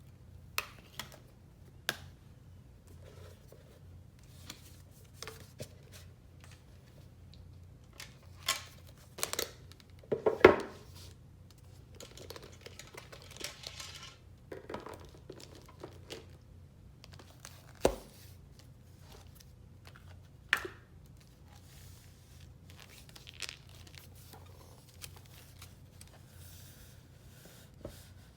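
Packaging being unwrapped by hand: paper crinkling and tearing, with scattered sharp clicks and taps of boxes and cases being handled. The loudest rustle comes about ten seconds in, and a longer stretch of crinkling follows a few seconds later.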